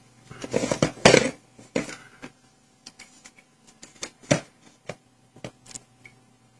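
A string of light, irregular clicks and knocks from small plastic devices being handled and their buttons pressed, with a small cluster about a second in and a single louder knock about four seconds in.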